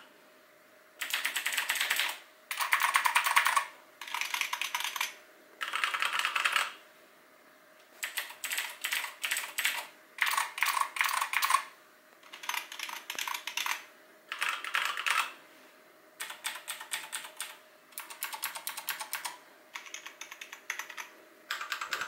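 Typing on several keyboards in turn, in about a dozen short bursts of a second or so with brief pauses between them. Among the keyboards are a Razer BlackWidow X with clicky Razer Green switches and a Royal Kludge G87 with tactile RK Brown switches.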